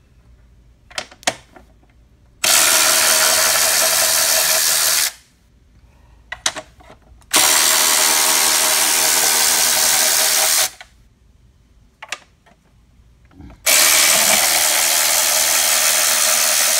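Cordless electric ratchet running in three bursts of about three seconds each, backing out the engine-cover bolts, with short clicks before each run.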